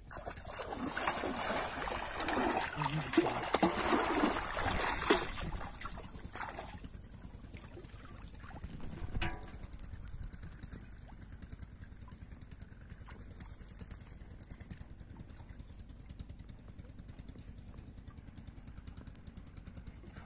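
Shallow pond water splashing and sloshing as a person wades in, loud for about the first six seconds, with a brief splash about nine seconds in and only faint water sounds after that.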